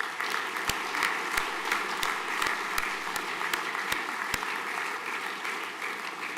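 Audience applauding, with a few louder single claps standing out near the microphone in the first four seconds; the applause slowly dies away toward the end.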